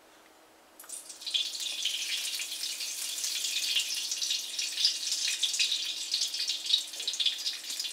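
Caramelized onion oil sizzling and crackling in a hot wok as it is scraped in from a bowl, starting about a second in and going on steadily.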